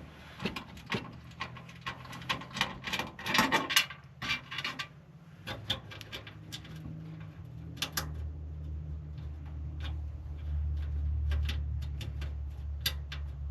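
Clicks, taps and light knocks of computer hardware being handled, thick in the first few seconds and then sparse. A low steady hum comes up about 8 seconds in and carries on under the clicks.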